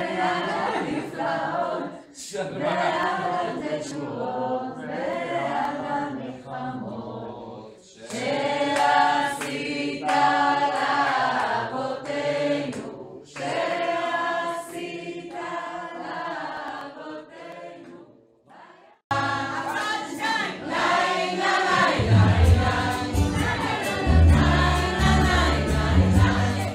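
A group of people singing together, with short pauses between phrases. About nineteen seconds in it cuts suddenly to singing over music with a strong, steady beat.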